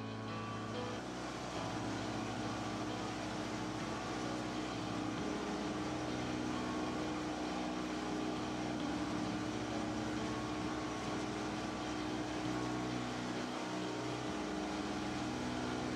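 Engine of a roofed pleasure boat running steadily under way, a continuous low hum with a rushing noise over it.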